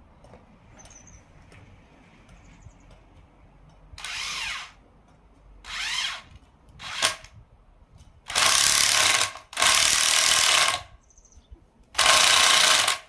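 Power drill boring spawn holes into a mushroom log. Three short bursts whose pitch rises as the motor speeds up are followed by three longer runs of about a second each at full speed.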